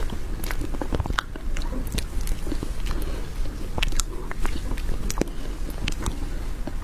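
Close-miked eating sounds of soft whipped-cream sponge cake being taken from a spoon and chewed: wet lip smacks and sharp mouth clicks at irregular moments, over a steady low hum.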